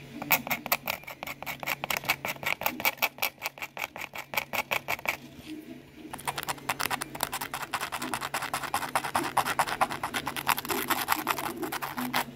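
Hand scuffing of a model glider's composite elevator, roughening the bonding surface for epoxy: rapid back-and-forth scratching strokes, about eight a second, that pause briefly around five seconds in and then resume in a denser run.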